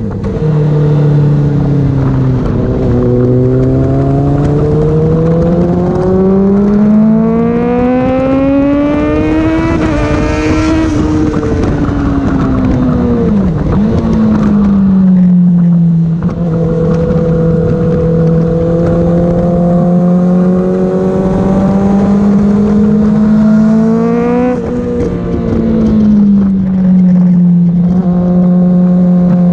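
Honda CBR600RR's inline-four engine running hard on track: its pitch climbs in a long rising sweep, falls away about halfway through, holds steady for several seconds, then climbs again with a quick change near the end. Wind noise runs underneath.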